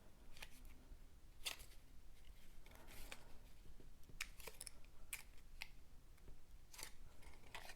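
Faint, irregular light clicks and rustles of cardstock pieces being handled while the card's back tabs are glued.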